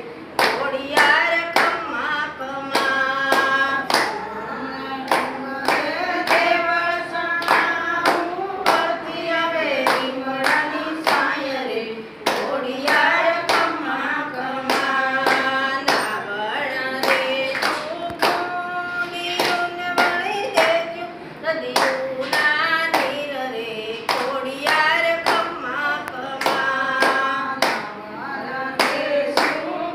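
Group of women singing a devotional song to the goddess Chamunda together, keeping time with steady hand claps about twice a second.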